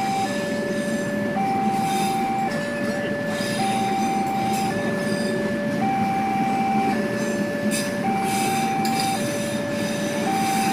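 Electronic two-tone warning alarm of a railway level crossing, switching between a lower and a higher tone about once a second. Under it, the steady rumble and rush of passenger coaches rolling past.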